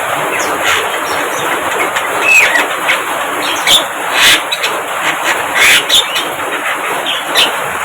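Javan myna (jalak kebo) chatter: a harsh, continuous jumble of calls with sharp squeaks and short whistles breaking through about once a second.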